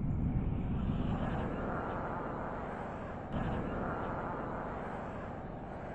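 Wind buffeting the camera microphone as a bungee jumper swings on the cord, a steady low rush that slowly eases off, with a short bump a little over three seconds in.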